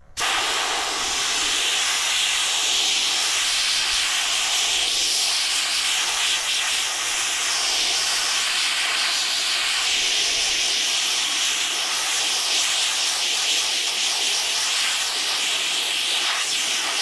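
Pressure-pot sandblaster blasting continuously through its gun: a loud, steady hiss of compressed air carrying abrasive, with the sand valve half open and sand flowing.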